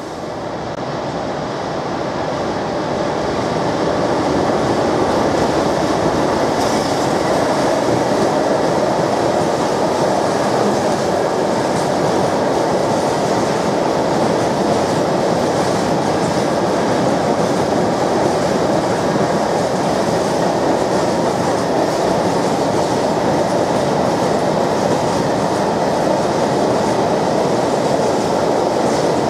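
Freight train of open-top wagons passing through at speed: a steady rumble of wheels on rails that builds over the first few seconds, then holds level.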